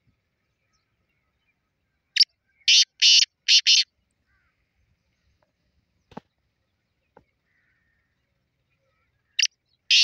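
Caged black francolin calling: a quick run of about five harsh, grating notes a couple of seconds in, then a second run starting near the end.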